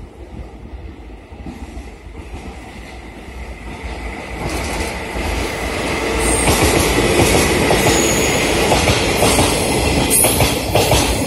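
A JNR DE10 diesel-hydraulic locomotive approaches and passes, getting louder from about four seconds in. It is towing a rake of unpowered, newly built Keikyu N1000 series cars, whose wheels roll by with rail-joint clatter and a steady high wheel squeal.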